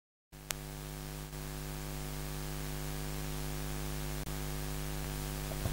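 Steady electrical mains hum with hiss from the microphone and sound system, starting abruptly out of dead silence a moment in, with a faint click just after it begins.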